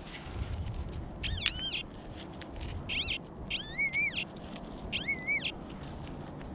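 An animal's high-pitched call, repeated four times, each call about half a second long and rising then falling in pitch.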